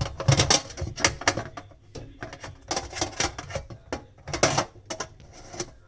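Hard plastic clattering, knocking and scraping from a Bosch dishwasher's filter being refitted into the sump, a run of sharp knocks that is busiest around the start, three seconds in and four and a half seconds in.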